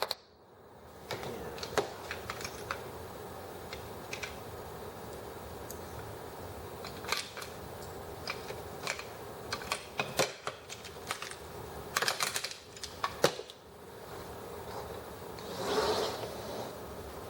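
Irregular small clicks and taps of metal parts and tools being handled on a sewing machine under reassembly, with a cluster of quick clicks about two-thirds of the way in and a brief scraping rustle near the end.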